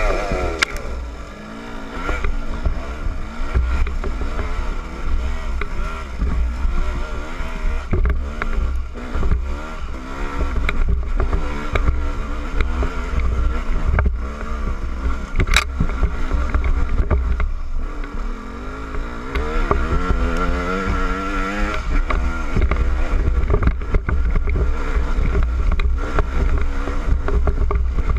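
KTM 200 EXC two-stroke dirt bike engine revving up and down under load on a rough rocky trail, its pitch rising and falling with the throttle, with heavy wind rumble on the helmet camera's microphone. A sharp knock about halfway through, and a steady climb in revs over a couple of seconds about two-thirds of the way in.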